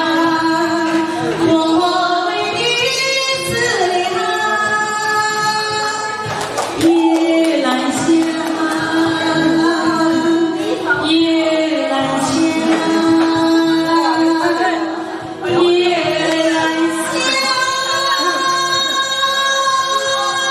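Music with singing, with long held notes.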